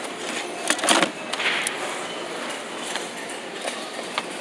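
Steady background noise of a busy store, with a couple of sharp knocks and a short rustle about a second in, typical of a product being handled.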